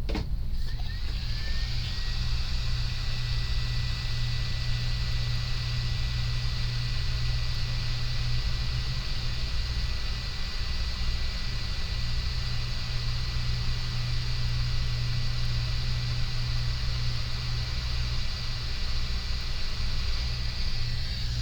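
Hot air rework station blowing a jet of hot air onto a circuit board to melt the solder of a shorted chip: a steady airy hiss with a thin high whine, switching on at the start and cutting off near the end.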